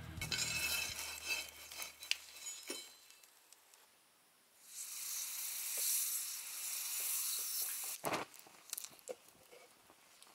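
Red-hot steel blade quenched in a can of oil: a loud steady sizzling hiss for about three seconds, then scattered small crackles as the oil burns.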